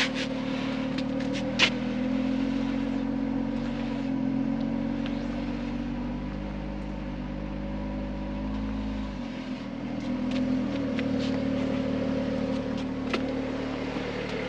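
Jeep Wrangler engine running steadily under load as it crawls up a rock ledge. Its note shifts and the low rumble drops away about nine seconds in. A few sharp clicks come in the first two seconds.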